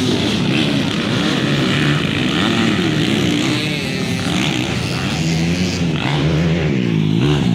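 Motocross dirt bike engines revving as the bikes race around the dirt track, their pitch rising and falling with the throttle, with a clear rise and drop near the end.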